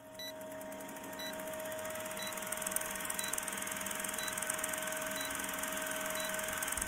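Vintage film-countdown sound effect: old projector-style hiss and crackle under a steady tone, with a short beep about once a second as the numbers count down.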